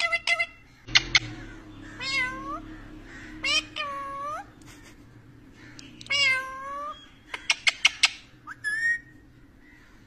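Rose-ringed parakeet vocalising: several drawn-out calls that dip and rise in pitch, broken up by quick runs of sharp chirps near the start and again near the end.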